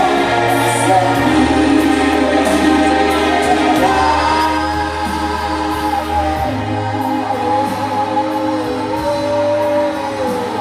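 Music with several voices singing together in long held notes over a low bass line.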